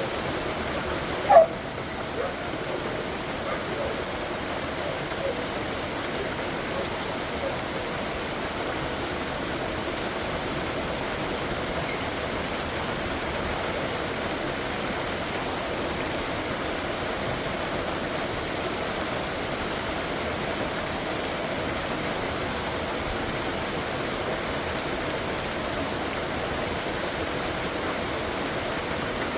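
Waterfall water rushing in a steady, even wash, with one short, sharp louder sound about a second and a half in.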